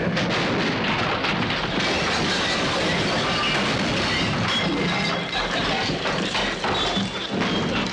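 A long crashing and clattering din that starts suddenly and keeps on at an even loudness, with music under it.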